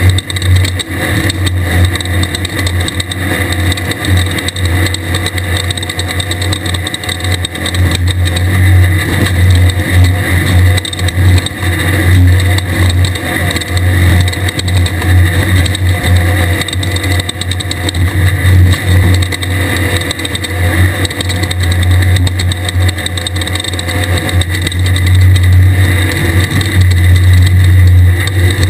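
Air-cooled VW 1600 flat-four engine of a 1600-class desert race buggy running hard and steadily at speed, a constant loud low drone over rough noise.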